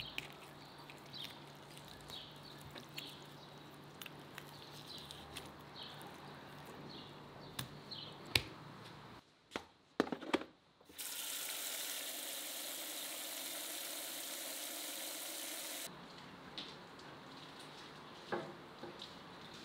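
Kitchen tap running into a plastic bowl of raw chicken pieces in a sink: a steady rush of water for about five seconds in the middle, shut off suddenly. Before it come quieter clicks and knocks as the raw chicken is handled on a wooden board.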